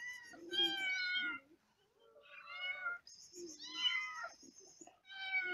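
Hungry cats and kittens meowing for food, a string of drawn-out meows one after another with short gaps between them.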